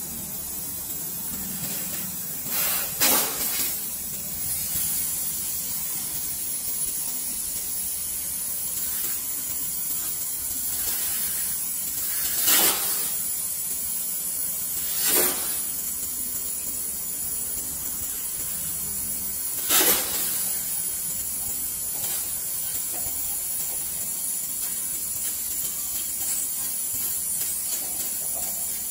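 Pressurised gas hissing steadily out of a refrigerator's open copper lines as they are blown through from a charging hose to flush them out, with four short, louder spurts spread through.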